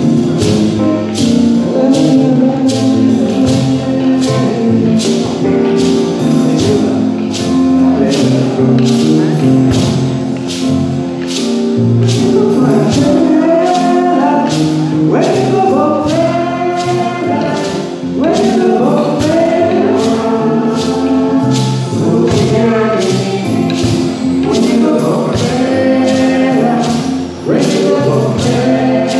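Live band music: drum kit, hand drums and a gourd shaker keep a steady beat, with voices singing, strongest from about twelve seconds in.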